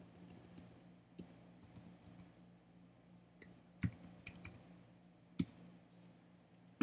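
Typing on a computer keyboard: faint, irregular key clicks, with two louder clicks about four and five and a half seconds in, over a faint steady low hum.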